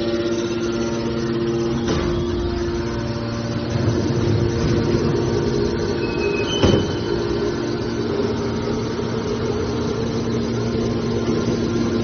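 Hydraulic metal scrap baler's electric motor and hydraulic pump running with a steady hum. Two short knocks come about two seconds and about seven seconds in.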